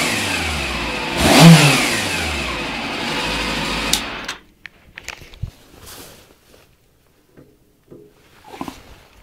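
Honda CB400 motorcycle engine given one quick blip of the throttle, revving up and falling back to a steady idle, then cut off suddenly about four seconds in. After that only a few faint clicks and knocks.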